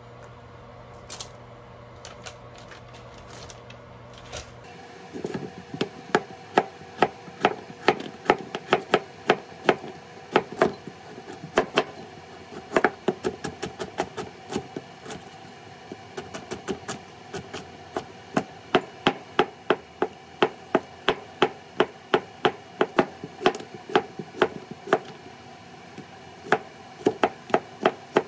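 A chef's knife chopping carrot and zucchini on a cutting board, in quick, even strokes of about three a second. The chopping starts about five seconds in and pauses briefly about two-thirds of the way through.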